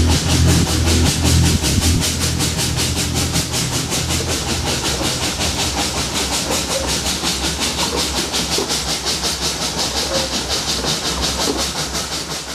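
Narrow-gauge steam locomotive working along, heard from the footplate: rapid, even exhaust beats, about five a second, over a steady steam hiss. A music track's bass notes fade out in the first few seconds.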